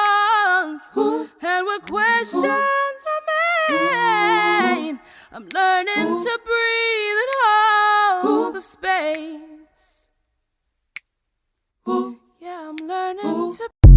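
A woman singing unaccompanied, in long held notes that bend in pitch; the singing breaks off for about two seconds near the end, then resumes briefly.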